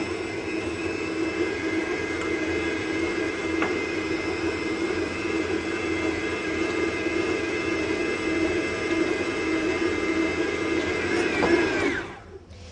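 Kenwood stand mixer's motor running steadily with a whine, its dough hook kneading bread dough. Near the end it is switched off and winds down, its pitch falling.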